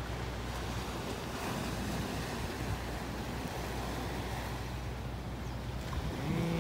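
Small waves washing onto a rocky shoreline: a steady surf hiss, with wind on the microphone.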